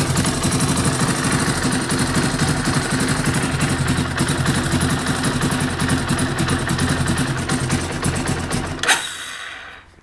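Yamaha YFM350R quad's single-cylinder four-stroke engine running at a steady idle. Near the end there is a sharp click, and the engine dies away as it is switched off.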